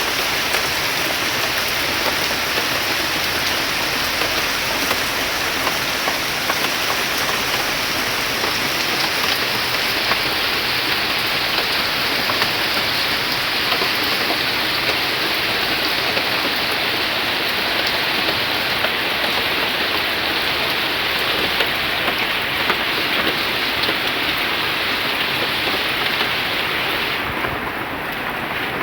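Heavy rain falling steadily, a dense even patter of drops on surfaces that eases slightly near the end.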